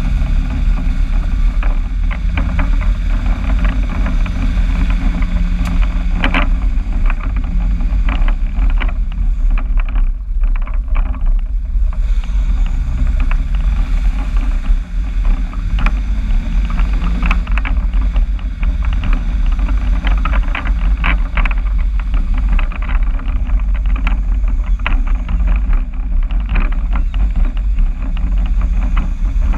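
A motor vehicle's engine running through a new exhaust: a loud, steady low drone whose pitch rises and falls gently, with frequent short sharp clicks scattered through it.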